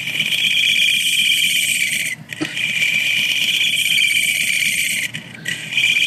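X-Acto knife blade shaving the plastic centre hub of an IBM Selectric II while the machine's own motor spins it like a lathe. It makes a steady high-pitched scraping squeal that breaks off briefly twice. The ledge of the cracked hub is being trimmed so the ring that goes around it stops binding.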